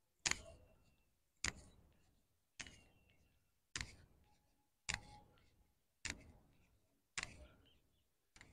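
Footsteps, a short sharp click about every second, evenly paced, with near silence between them.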